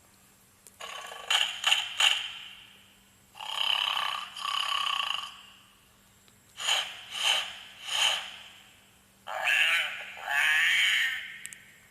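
A children's jungle sound book's speaker playing recorded animal calls, four short sound clips one after another with quiet gaps between them.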